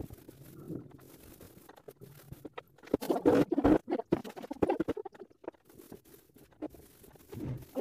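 Paintbrush scratching and dabbing paint onto a ceiling in quick, irregular strokes. The sound is loudest and busiest about three to four seconds in.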